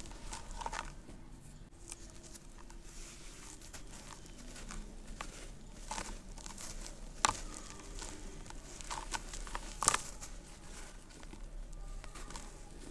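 Lumps of dry red dirt crumbling and crunching, broken up by hand, with irregular small crackles and two sharper snaps about seven and ten seconds in.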